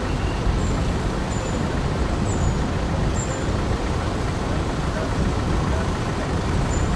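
Road noise from a moving vehicle: a steady low rumble with wind buffeting the microphone, and faint high chirps about once a second.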